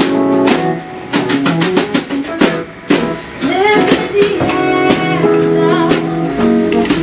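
Background music: an acoustic guitar-led pop song with drums and a singing voice.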